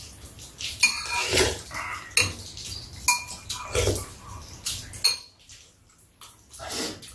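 Metal spoons and chopsticks clinking and scraping against bowls and a metal tray as two people eat, a few light clicks at uneven intervals, going quieter for a moment near the end.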